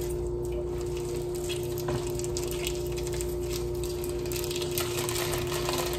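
A steady, even hum with a constant tone, under faint, scattered soft crinkles and squishes of raw ground beef being squeezed out of plastic chub packaging into a metal pot.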